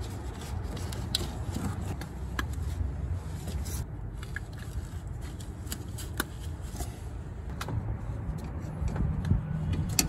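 Canvas work-jacket sleeve rustling and rubbing right against the microphone, with scattered small clicks as spark plug wires are pressed into place on a distributor cap.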